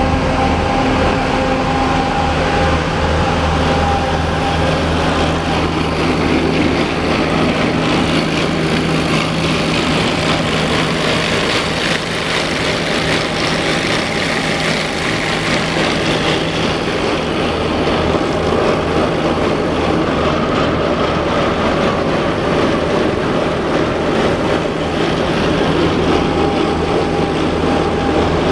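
A Screen USA Tornado Star 4012 mobile screening plant running steadily: a constant low engine drone under a dense, even mechanical noise.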